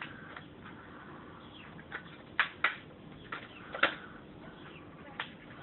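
Cut plastic bottle being handled: about half a dozen irregular sharp plastic clicks, the loudest a cluster in the middle.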